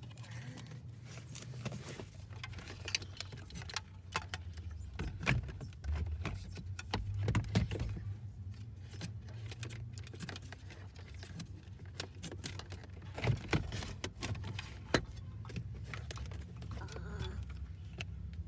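Car stereo wiring being handled: plastic harness connectors and loose wires rattling and clicking, with scattered sharp clicks and knocks over a steady low hum.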